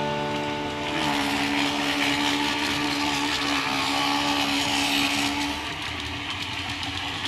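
TOMIX DD200 N-gauge model locomotive running on track: a steady whirring motor hum with a rattling hiss of wheels and gears, which eases off after about five seconds.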